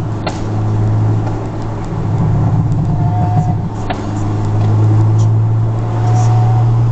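In-cabin sound of a 2006 Honda Accord Euro R's K20A four-cylinder engine through a J's Racing exhaust, a steady drone while driving that swells and eases a few times. Two brief sharp snaps come through, about a third of a second in and again just before four seconds.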